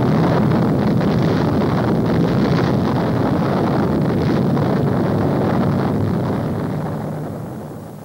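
Loud, continuous rumble of a huge explosion, starting suddenly, holding steady, then fading away over the last two seconds.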